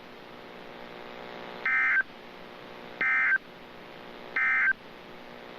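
Emergency Alert System end-of-message signal: three short bursts of warbling digital data tone, about 1.3 seconds apart, the coded 'NNNN' that marks the end of the alert. A faint steady hum runs underneath between the bursts.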